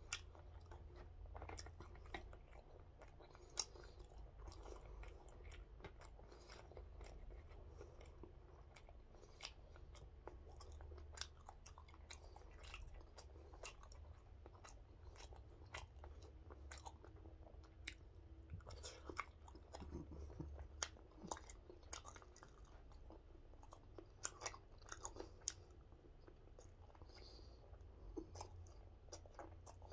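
Faint close-up chewing of gwamegi, semi-dried fish, with irregular small mouth clicks and smacks.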